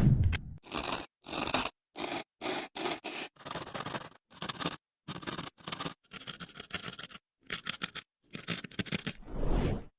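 Plastic being rustled and crinkled in short bursts of a fraction of a second each, with brief silent gaps between them. A deeper handling bump comes at the very start and again near the end.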